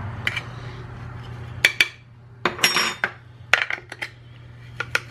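A measuring cup knocking and scraping against the inside of a clear canister while scooping brown sugar: sharp clicks and short scrapes in small clusters, over a low steady hum.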